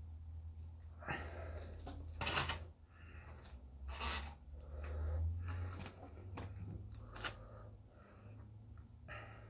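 A fork and plastic knife cutting food in a styrofoam takeout box: a series of short scrapes and squeaky rubs against the foam, with a few clicks of cutlery, over a low steady hum.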